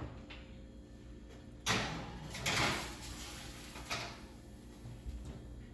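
Kitchen oven door being opened and a foil-lined baking pan slid onto the oven rack: three short scraping, knocking sounds, the first and loudest about two seconds in.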